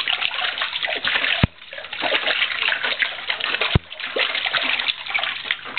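Bathwater splashing and sloshing in a baby's bathtub as an infant is bathed, with two sharp knocks in between.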